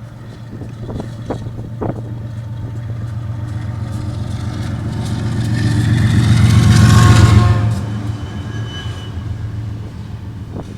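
Diesel locomotive of a passing train: the engine hum and rail noise build to their loudest about seven seconds in, then fade as it goes by, with a few sharp clicks early on.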